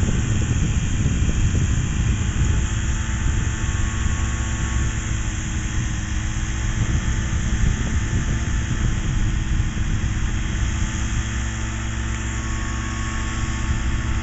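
Kolb Kolbra ultralight's engine and propeller running steadily at low power as the plane taxis on the ground.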